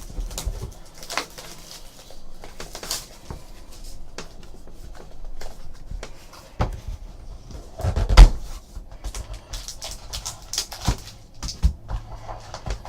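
Hands opening a trading-card box and handling its packaging and cards: scattered taps, rustles and clicks, with a louder knock about eight seconds in.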